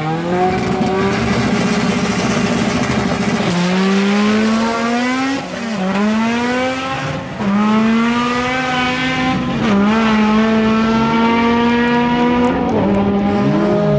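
Drag-racing car engine at full throttle accelerating down the strip. Its pitch climbs in long rising sweeps and drops sharply at each upshift, five times in all.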